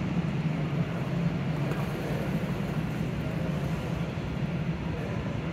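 Steady low hum and rumble of an airport people-mover train at a station platform, heard through the platform screen doors.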